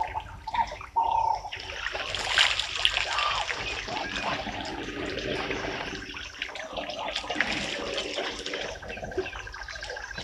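African elephants drinking at a waterhole: uneven splashing and trickling of water as their trunks draw it up and let it fall.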